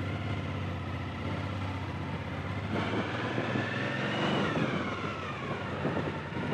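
Motorcycle engine running on the move, its pitch rising about halfway through and then falling away as it eases off.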